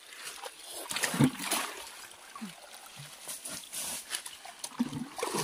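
Irregular splashing and sloshing in shallow pond water as someone wades and gropes for fish. The loudest splashes come a little over a second in.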